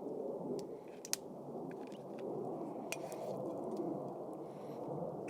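Light clicks and clinks of utensils against dishes or a pan, the sharpest about a second in and a pair near three seconds, over a steady low rushing noise.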